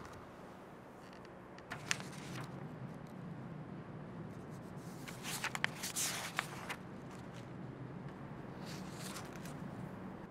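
Paper rustling and crinkling as sheets on a clipboard are leafed through, in a few short bursts, the loudest from about five to seven seconds in, over a steady low hum.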